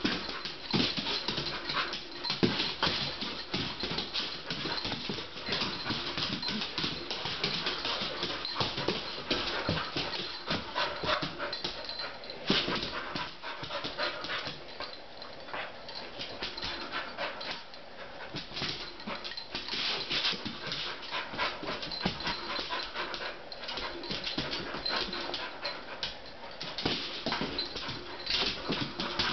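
Puppy's claws clicking and skittering on a ceramic tile floor in a dense, uneven run as it scrambles and spins, with some whimpering and panting from the dog.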